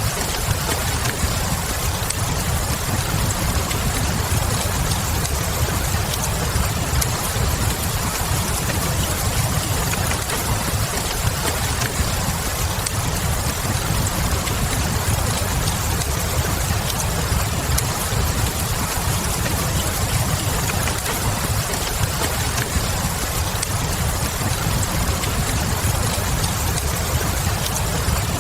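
Fireplace and rain ambience: a steady low rumble of the fire with scattered faint crackles over a constant hiss of rain.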